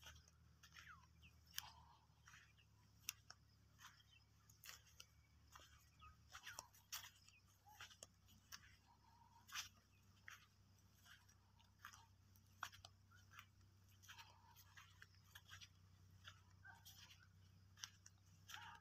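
Faint, irregular crunching and crackling of footsteps on dry, crusted field soil, close to the microphone, over a low steady hum.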